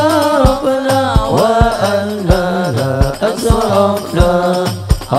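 Sholawat, Arabic devotional song in habsyi style: a voice holding long, ornamented, wavering notes over a steady low accompaniment, with a drum beating about every half second.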